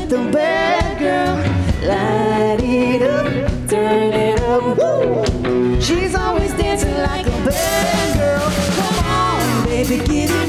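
Live disco band playing: a woman singing lead over electric guitars, electric bass and drums.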